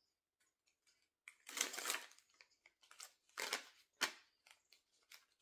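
A deck of tarot cards being shuffled by hand in several short rustling bursts, with a sharp snap of cards about four seconds in.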